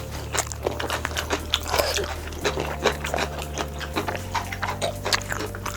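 Close-miked eating sounds: steady chewing of Chinese takeout food with many quick, irregular mouth clicks, over a steady low hum.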